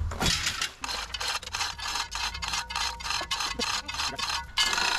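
Manual chain hoist being worked to lower a hanging engine block, its chain rattling and clicking through the hoist in quick even strokes, about four or five a second. A louder, rough scraping rush near the end.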